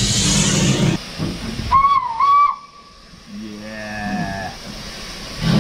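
Steam locomotive letting off a hiss of steam, then a short, wavering whistle blast about two seconds in, followed a second later by a fainter, lower tone.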